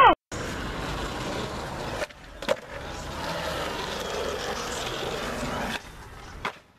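Skateboard wheels rolling on concrete, heard in short clips broken by abrupt cuts, with a sharp clack of the board about two and a half seconds in and another near the end.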